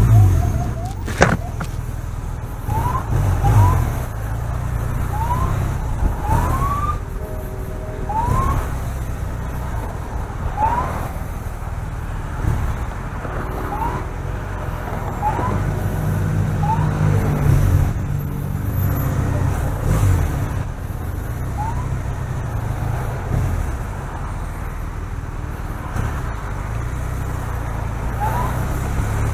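Police motorcycle running at low speed, with short rising siren chirps blipped about eleven times at gaps of one to several seconds to warn traffic and clear a path.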